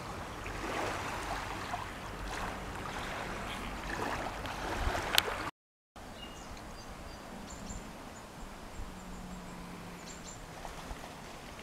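Steady outdoor lakeshore background noise of wind and water. It breaks off for a moment about halfway through and comes back quieter, with a few faint high chirps.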